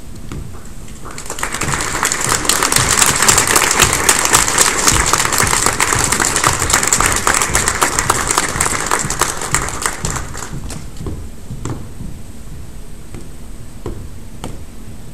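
Audience applauding: the clapping swells about a second in, holds for several seconds, then fades out, leaving a few scattered claps near the end.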